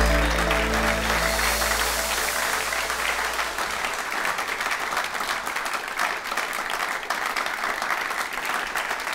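Audience applauding, with dense clapping throughout. Electronic intro music with held notes and a bass line fades out over the first three seconds.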